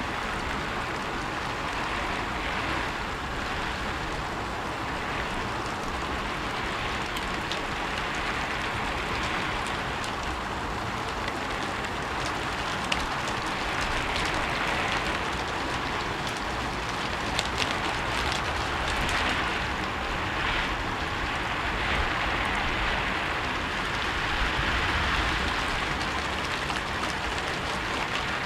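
Steady rain falling on a rooftop: an even hiss of rainfall with scattered individual drops ticking, swelling gently in and out.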